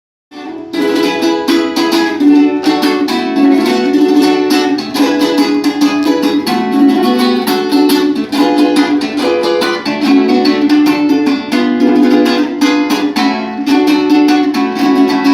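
Venezuelan cuatro strummed in a fast, steady rhythm of chords, starting about half a second in.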